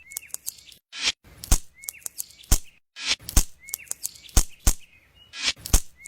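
Sharp taps or knocks at an uneven pace, about one to two a second, with short bird chirps between them.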